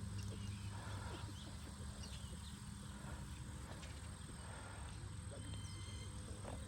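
Outdoor lakeside ambience: a steady low wind rumble on the microphone, with small birds chirping now and then.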